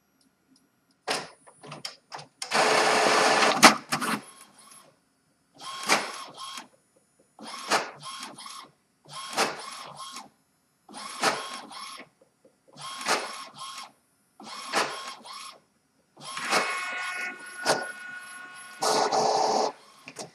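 Epson WorkForce WF-3540 inkjet printer making a colour copy. It pulls the paper in, then its print-head carriage sweeps across in short passes, one every second or two, and near the end the feed motor runs steadily as the printed page is pushed out.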